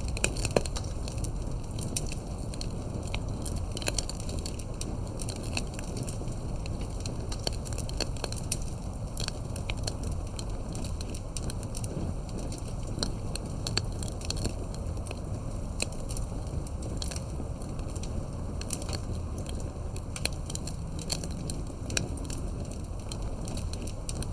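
Campfire burning: dense, irregular crackles and sharp pops over a steady low rumble.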